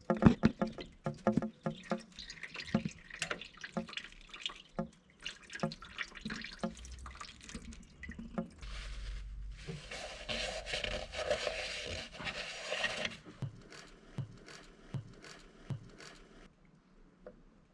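Liquid dripping and trickling, with a dense run of small clicks and knocks, then a few seconds of steady running-liquid noise about halfway through before it thins to scattered drips.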